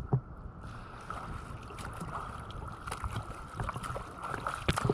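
Seawater sloshing and splashing around swimmers in the sea, with scattered sharp splashes and some wind noise on the microphone.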